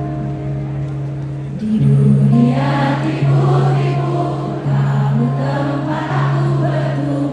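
Live pop ballad played over a concert PA. Sustained low held notes, then singing comes in about two seconds in and carries over the band.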